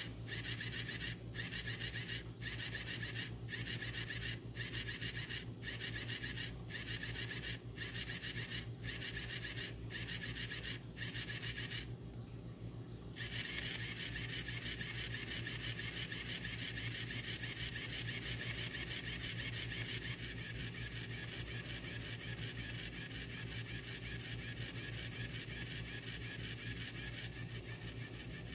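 Catit Groovy Fish cat toy's small electric motor flipping its bare plastic tail arm back and forth, a steady mechanical whir. For the first ten seconds it cuts out briefly about once a second, then it stops for about a second and runs on without breaks.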